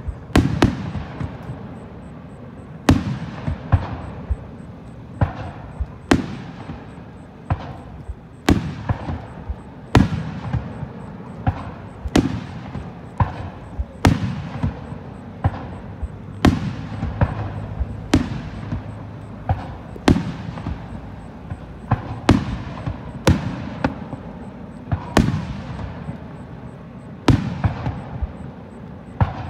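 Aerial firework shells bursting one after another, a sharp boom every second or two, each trailing off in a rumbling echo.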